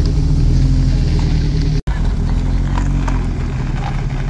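Lotus Turbo Esprit HC's turbocharged four-cylinder engine running at low revs as the car creeps across gravel; the sound drops out for an instant about two seconds in.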